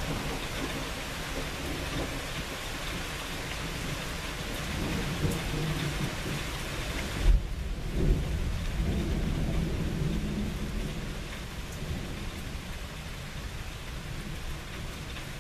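Rain falling steadily while thunder rumbles. The rumble builds about five seconds in, breaks into two sharp, loud cracks around the middle, then rolls on and fades. The rain hiss is quieter after the first crack.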